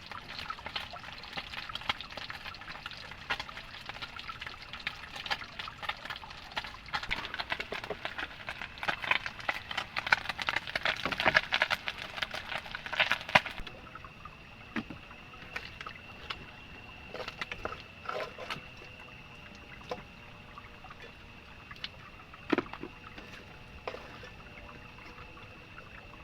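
Water trickling and splashing with many small crackling drops. About halfway through it changes abruptly to a quieter background with a steady high-pitched tone and a few scattered knocks.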